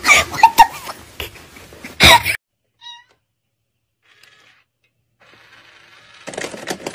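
A cat meowing amid bumps and knocks, cut off suddenly about two seconds in. Near the end, a short noisy mechanical whirr with clicks from a cat coin-bank toy as its toy cat pops out of the box.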